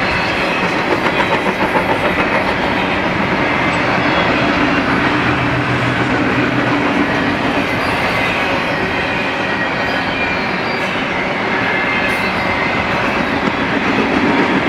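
Double-stack container train's well cars rolling past, steel wheels running on the rails with a loud, steady rumble and clatter.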